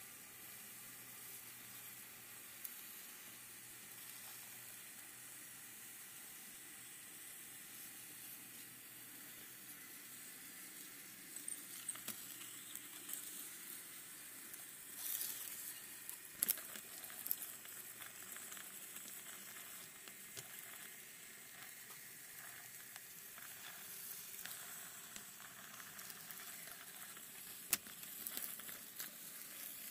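Faint, steady hiss and crackle of an N scale model train rolling along its track, heard from a camera riding on the train. The crackle gets busier about a third of the way in, and a few sharp clicks stand out.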